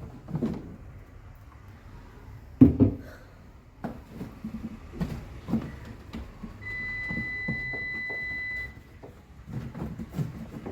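Refrigerator's electronic beeper giving one steady high beep about two seconds long, around the time the fridge is being switched back on. Before it come several knocks and thumps of handling, the loudest a few seconds in.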